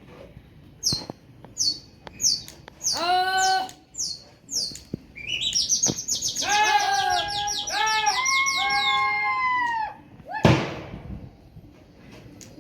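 Birds chirping and calling: a run of quick, high, falling chirps, then several seconds of dense, repeated call notes. A single loud burst of noise comes near the end.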